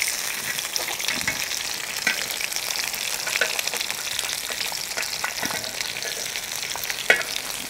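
Homemade pork-and-chicken sausages frying in hot clarified butter in a cast-iron skillet: a steady sizzle with scattered crackles and pops.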